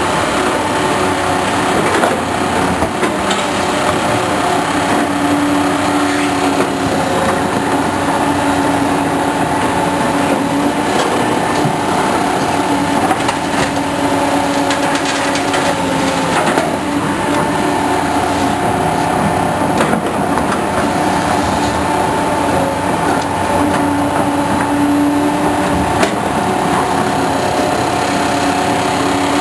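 Loud, steady mechanical noise from big machines running, with several sustained droning tones over a constant rumble.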